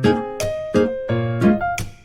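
Background music: a bright, rhythmic instrumental with plucked or keyboard notes struck in a steady pulse.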